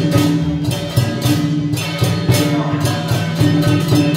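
Loud rhythmic percussion music: drums with crashing cymbal hits in a quick, even beat, over sustained low tones.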